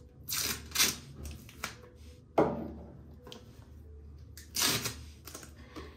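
Organiser boxes being handled and set in place: a few rustling scrapes and knocks, the sharpest knock about two and a half seconds in.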